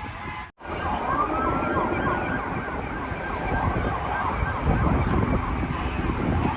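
Emergency vehicle siren, coming in after a brief dropout with one long rising wail, then switching to quick rising-and-falling yelps, over low engine and traffic rumble.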